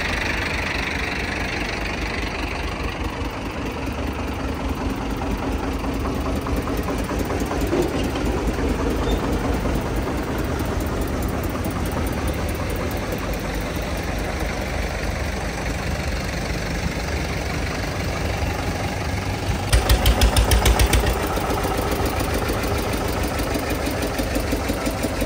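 Diesel tractor engines running with a steady knocking beat, with a louder pulsing stretch lasting about a second near the end.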